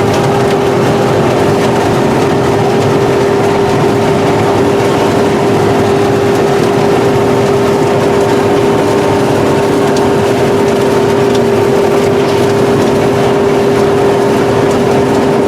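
Combine harvester running steadily, its engine noise carrying a constant high whine that holds one pitch throughout.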